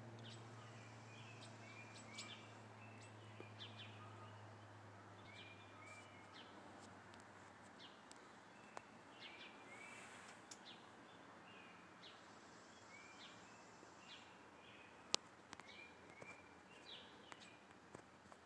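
Faint outdoor ambience: small birds chirp over and over. The low drone of a distant airplane fades out over the first several seconds, and there is a single sharp click about fifteen seconds in.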